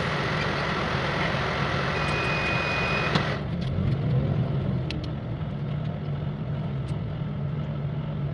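Bus running, heard from inside the passenger cabin: a steady low engine hum with road rush. A brief high tone sounds about two seconds in, and the rushing noise drops away about three seconds in, leaving mostly the low hum with a few faint rattles.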